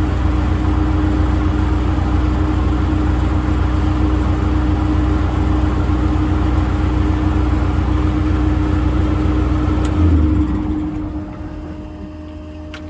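Diesel truck engine running steadily with a deep drone and a steady hum, the service truck's 6.7 L Power Stroke V8. About ten seconds in the sound drops off sharply to a much quieter hum.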